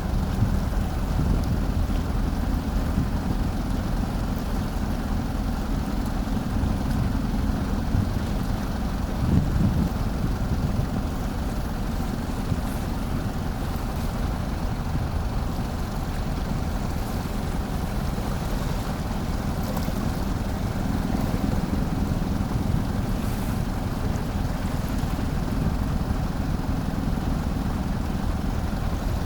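Ferry's engines running with a steady low drone as the ship comes into port, with wind noise on the microphone.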